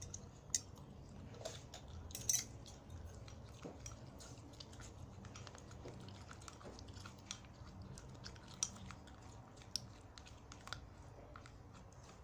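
Small spoon stirring a thickening glue and baking-soda slime mixture in a bowl, with irregular soft clicks and scrapes of the spoon against the bowl.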